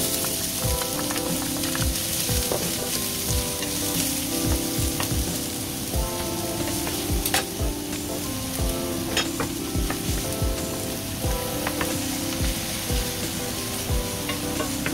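Chopped onions sizzling in hot oil in a stainless-steel frying pan, stirred with a wooden spoon that now and then clicks and scrapes against the pan. The sizzle starts as the onions hit the oil.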